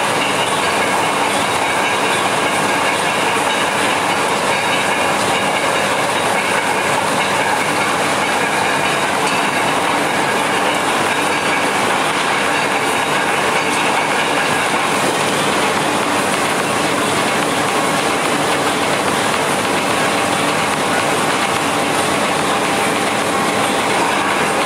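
A train running along the track: a steady, loud running noise of wheels on rails that goes on without a break.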